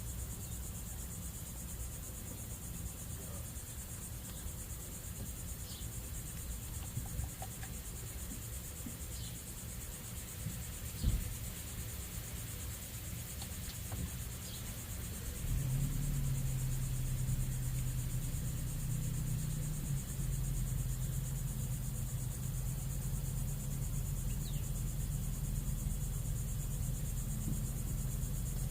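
Steady, high-pitched insect chirring, with a low steady hum that comes in a little past halfway and a single knock shortly before it.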